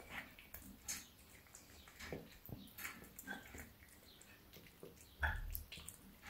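Dreaming cat making small noises in its sleep: scattered short clicks and brief little squeaks, with a louder thump about five seconds in.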